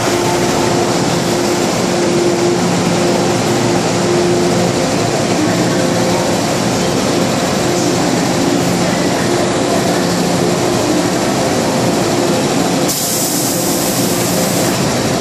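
MTR M-Train electric multiple unit standing at an underground platform: a steady hum with several held tones. A burst of hiss about 13 seconds in comes as its doors close.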